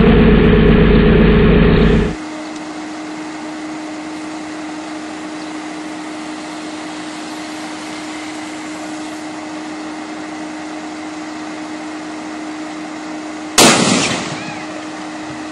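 A loud, steady rumble with a hum cuts off about two seconds in, leaving a steady hiss with a faint hum. Near the end comes a single sharp, loud bang from an electrical short circuit arcing at the top of a utility pole, dying away over about a second.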